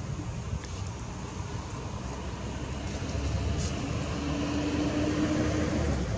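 Low engine rumble of a motor vehicle, growing louder about three seconds in, with a steady hum for over a second near the end.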